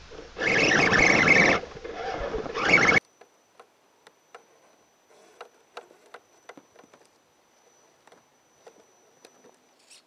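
Electric RC crawler truck driving into a dirt bank: two loud bursts of rushing, whirring noise in the first three seconds, then it cuts off and only faint scattered clicks are left.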